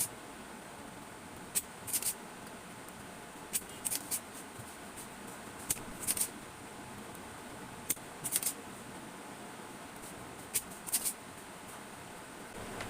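Short crisp clicks from small hand tools, mostly in pairs about half a second apart and coming every two seconds or so, over a steady hiss, while the amplifier ICs are being taken off a speaker amplifier's circuit board.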